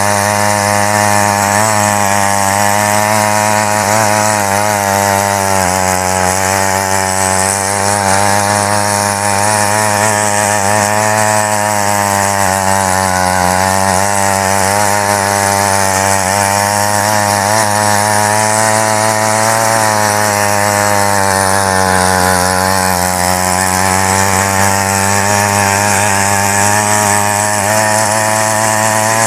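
Mini weeder's small petrol engine running steadily under load while its rotary tines churn through soil, the pitch wavering slightly as the load changes.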